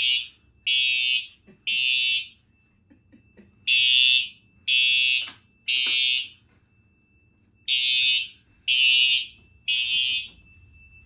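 Fire alarm horns sounding the temporal-3 evacuation pattern after a manual pull station was pulled: three loud, high-pitched tones of about half a second each, a pause of about a second and a half, then the next three, repeating. A faint steady high tone runs underneath.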